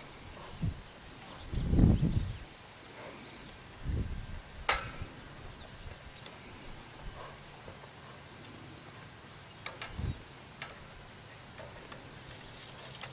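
Steady high-pitched insect chorus, crickets or similar, with a few short low thuds, the loudest about two seconds in, and one sharp click a little later.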